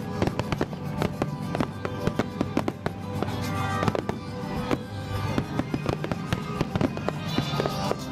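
Fireworks going off in rapid succession, a dense run of sharp cracks and pops, with music playing underneath.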